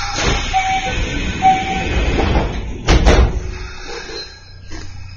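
Kintetsu train's sliding passenger doors closing: a rushing hiss with two short tones, then a loud thud about three seconds in as the doors shut.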